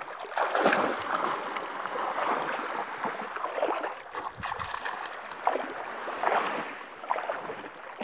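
Feet wading through shallow seawater: irregular sloshing splashes, one every second or so.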